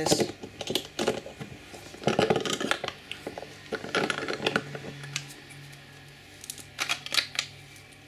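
Short clusters of small metallic clicks and clinks from a steel nut being run onto a bolt set in a wooden block and a stainless multitool's pliers being handled against it, in four or five bursts with brief pauses between.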